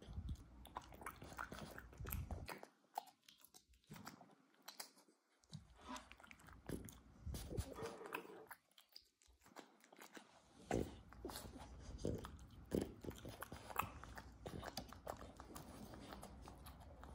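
French bulldog chewing and biting food close up: a string of sharp crunchy clicks with two short pauses, one about three seconds in and one about nine seconds in.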